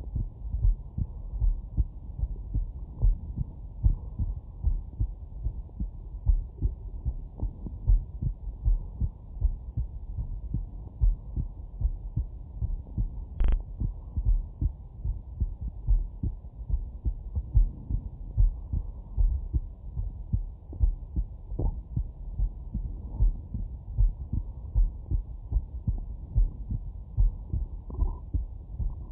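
A man's heartbeat heard through a Stemoscope stethoscope: steady, regular low beats, muffled, with nothing above a low range.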